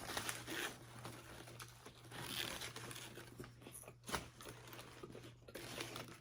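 Faint rustling and crinkling of food wrappers being handled, with a sharper crackle about four seconds in.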